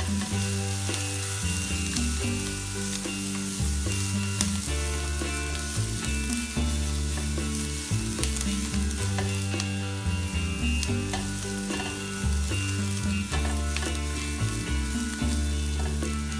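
Diced carrot and scallion sizzling in oil in a nonstick wok while being stirred and pushed around with a plastic spatula. Scattered light scrapes and taps of the spatula on the pan sound through the steady sizzle.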